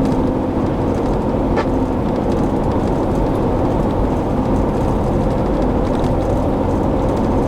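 Steady vehicle noise heard from inside the cabin, an even rumble with a low hum and no breaks.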